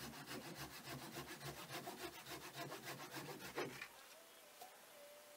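Small hand saw cutting through a wooden branch with quick back-and-forth strokes, about four a second, stopping about four seconds in.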